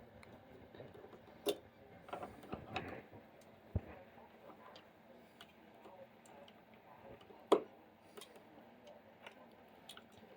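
Scattered light clicks and taps of a screwdriver and wire ends being worked onto a light switch's screw terminals, with two sharper clicks, about a second and a half in and again after about seven and a half seconds.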